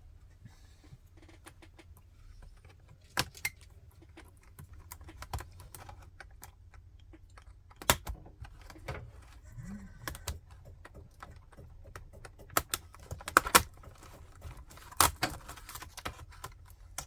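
Irregular sharp clicks and light clatter of small screws, a screwdriver and the plastic case and keyboard of a Dell Inspiron 5559 laptop being handled while it is taken apart, over a low steady hum.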